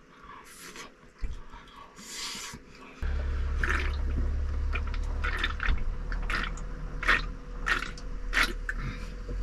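A man chewing a mouthful of food, then gulping beer from a can in a run of swallows, a bit under two a second. A low steady hum starts suddenly about three seconds in.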